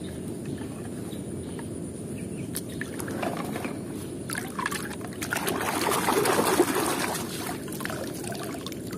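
A hand sloshing and swishing in a shallow tub of muddy water while rinsing a small die-cast toy car, with water trickling and dripping. The splashing grows louder about halfway through.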